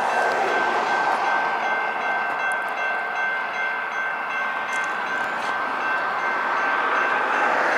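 Railroad grade crossing warning bell ringing in a steady repeating pattern over the continuous rumble of an approaching freight train.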